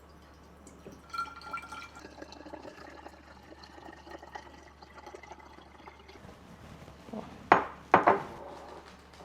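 Kitchen cookware clatter: a clink about a second in that rings on for a few seconds, then two loud, sharp knocks about half a second apart near the end.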